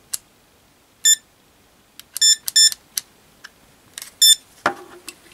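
Mustool MT92 digital multimeter beeping as its thumb wheel and buttons are worked: four short, high-pitched beeps, one about a second in, two close together in the middle and one near the end, among light clicks from the controls. A soft knock comes near the end.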